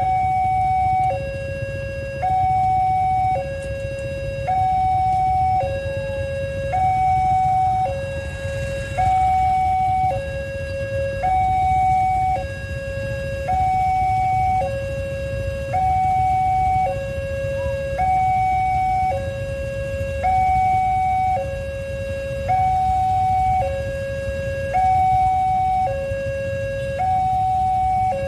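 Railway level-crossing warning alarm sounding: an electronic two-tone signal swapping between a higher and a lower note, each held about a second, signalling that the barrier is down for an approaching train. A low steady rumble of waiting traffic lies underneath.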